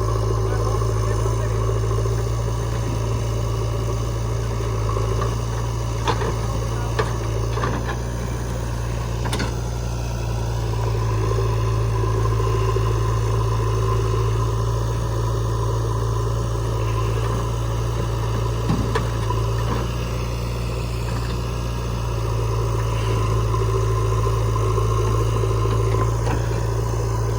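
Diesel engines of a backhoe loader and a farm tractor running steadily, with a few short sharp knocks between about six and ten seconds in.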